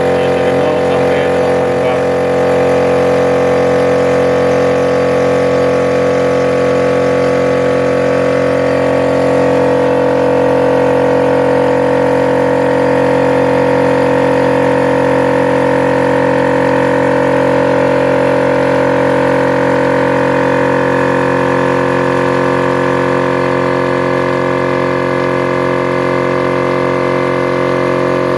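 A 3/4 hp Multipro DCC-075/10 HS electric air compressor running steadily, its piston pump filling the 10-litre tank toward its 8 bar cut-off. About nine seconds in its sound brightens slightly.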